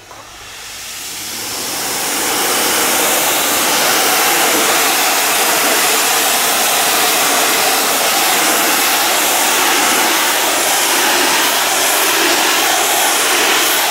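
Greenworks Pro 2200 PSI electric pressure washer jetting water onto vinyl house siding: a loud, steady spray hiss that grows louder over the first two seconds.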